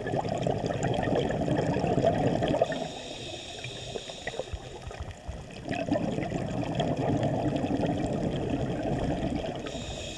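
Scuba diver breathing through a regulator underwater: two long exhalations send out a rush of bubbling, and between them is a quieter hiss as the diver inhales.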